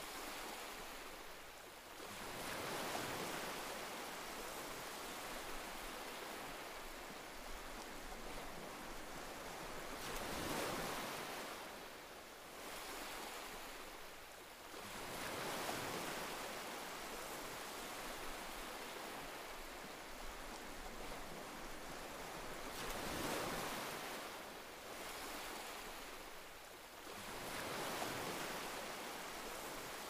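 Ocean surf: waves breaking and washing over rocks, the rush swelling and fading every several seconds.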